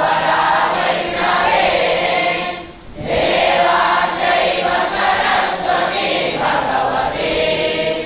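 A group of young boys chanting Vedic mantras together in unison, with one short pause for breath about three seconds in.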